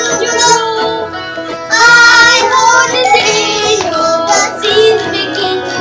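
A children's song: a child's voice singing the melody over a bright plucked-string backing.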